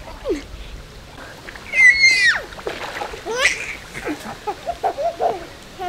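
Baby squealing with delight: a loud, very high-pitched shriek about two seconds in that drops in pitch at its end, then a shorter rising squeal and bits of laughing babble, over light splashing of pool water.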